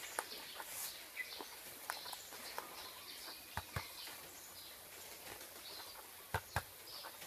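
Quiet, scattered taps and clicks of hands handling a loudspeaker cone and its frame, the loudest two sharp taps close together near the end. Faint bird chirps sound in the background.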